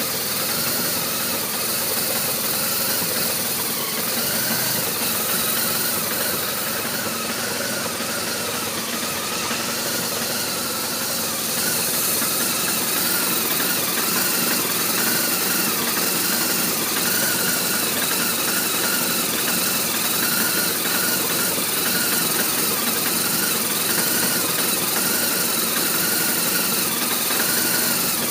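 BMW R1200RT boxer-twin engine idling steadily, an idle the owner calls rough. It gets slightly louder about twelve seconds in.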